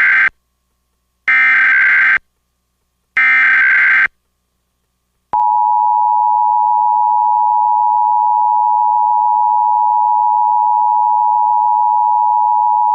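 Emergency Alert System tones from a mock alert: three short bursts of screechy data tone (the SAME header, the first already ending), then a gap and a steady two-note attention tone held for about eight seconds.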